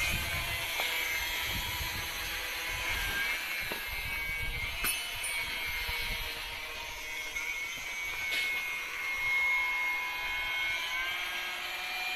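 A steady mechanical whine with several pitches held together, drifting slightly. Low rumble of wind or handling on the microphone in the first few seconds.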